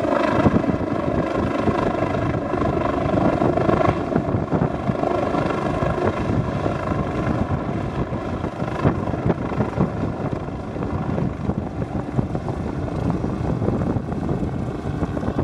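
Helicopter lifting off and climbing away: a steady turbine whine over the rapid chop of the rotor blades.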